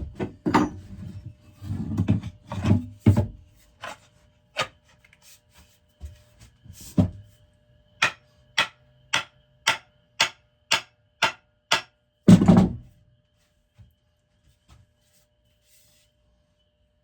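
Sharp wooden knocks as an axe head is driven down onto its wooden handle during hafting: a group of heavy knocks at first, then a steady run of about two strikes a second, ending in one heavier thump.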